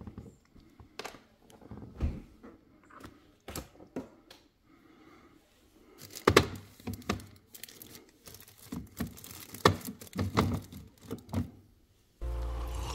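Scattered thunks, taps and crinkling of objects being handled, at irregular intervals. Music with a steady beat starts near the end.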